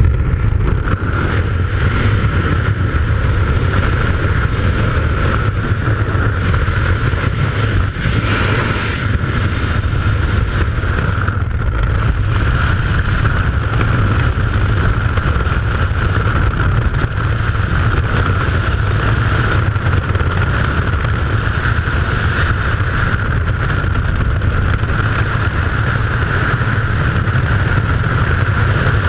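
Freefall wind rushing over a head-mounted action camera: a loud, steady roar with a constant whistle-like tone above it.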